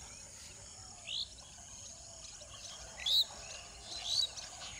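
Birds chirping in short calls, the loudest about three seconds in, with others about one and four seconds in, over a steady high insect drone.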